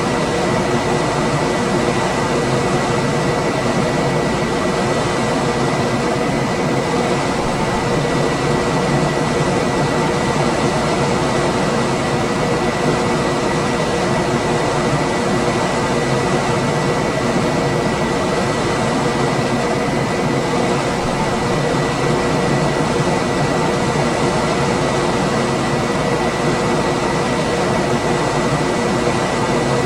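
Room air conditioner running steadily: a constant rush of fan noise with a thin high whine and a lower hum held underneath, unchanging throughout.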